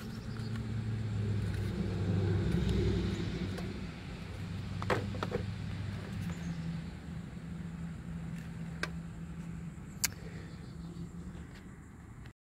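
A car engine running steadily, a little louder in the first few seconds, with a few sharp clicks. The sound cuts off suddenly near the end.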